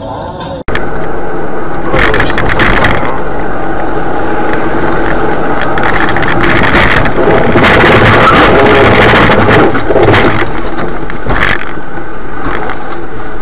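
Loud car and road noise from a vehicle crash, with louder scraping and cracking bursts about two seconds in, again from about six to ten seconds, and once more near the end.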